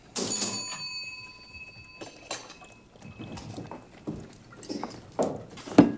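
A sharp glass clink on a bar counter that rings on for about two seconds, followed by scattered clinks and knocks of a bottle and glass being handled, with a louder thump near the end.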